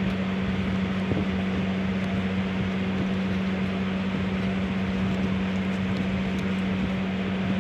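Steady hum and even airy noise of a running electric fan, with faint rustles of paper being folded by hand.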